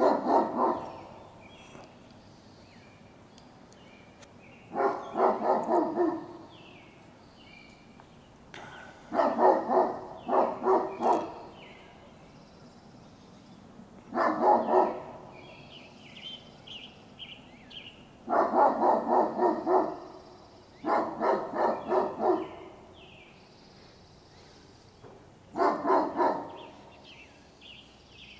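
Great Pyrenees dogs barking in short runs of several barks, a new run every few seconds.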